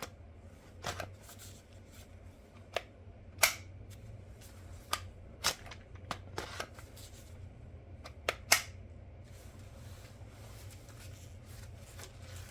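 Scattered sharp clicks and knocks, about nine in all and unevenly spaced, from a cordless impact wrench being handled with its battery just fitted; the tool is not run.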